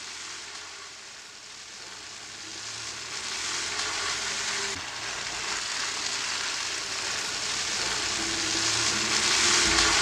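A steady hiss that grows louder in the second half and is loudest near the end, with a few faint held low tones.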